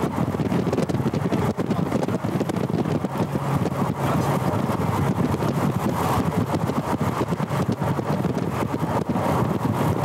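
Car driving, with steady road and engine noise and wind buffeting the microphone.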